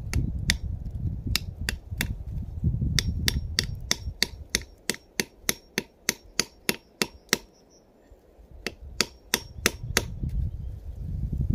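A hand tool being worked into the base of a birch trunk to tap it for sap, making a long run of sharp taps about three a second, with a short break about two-thirds of the way through.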